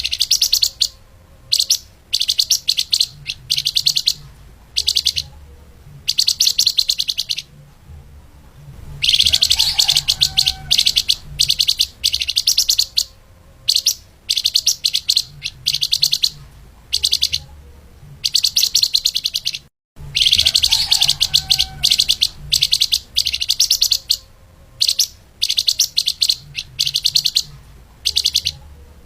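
Flamboyan (lemahan) bird singing in rapid, tightly packed high trills, given in short bursts with brief pauses between them. The sound cuts out completely for a moment about twenty seconds in.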